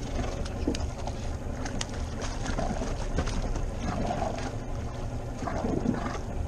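Steady wind buffeting the microphone over water washing against an inflatable boat's hull, with scattered short knocks and splashes.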